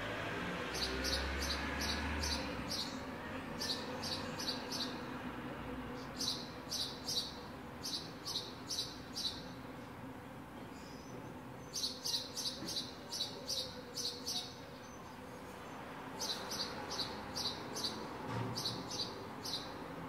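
House sparrow chirping in runs of quick, sharp chirps, about three or four a second, with short pauses between the runs.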